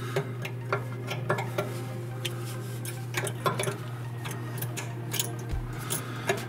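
Needle-nose pliers working a small steel cotter pin in a castle nut on the grinder's blade shaft: a string of irregular light metal clicks and ticks over a steady low hum.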